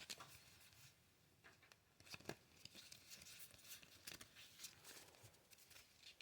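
Faint rustling and scattered light clicks of board-game cards and cardboard pieces being handled, with a few sharper clicks.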